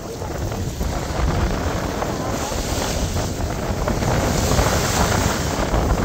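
Wind buffeting the microphone: a steady, rough rush of noise, heaviest in the low end, that comes up just after the start and holds.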